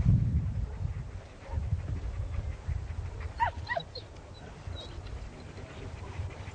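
A dog giving a quick run of three or four short, high whines about three and a half seconds in, over a steady low rumble.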